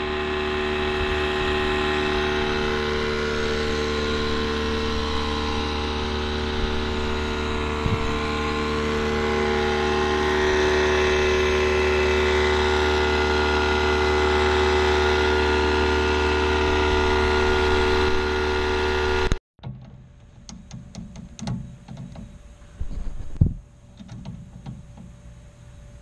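A motor-driven machine running with a steady hum and several fixed whining tones. It cuts off abruptly about 19 seconds in, leaving much quieter scattered clicks and knocks of handling.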